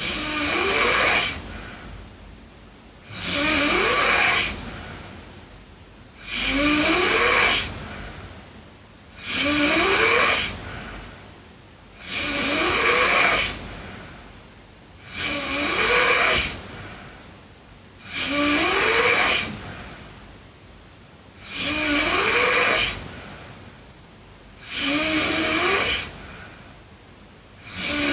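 A girl snoring in her sleep, one snore about every three seconds, each rising in pitch as it goes, with quieter breathing in between.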